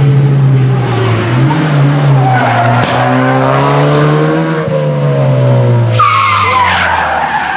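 Hatchback rally car's engine running hard as it passes and pulls away on a tarmac stage. The engine note holds high, then falls away about halfway through. Tyres squeal in a wavering high note over the last second or two as the car takes the bend.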